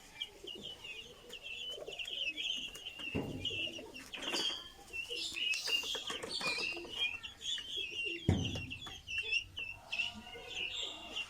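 A flock of young guinea fowl and turkey chicks chirping continuously in many overlapping short peeps, with a couple of low thumps.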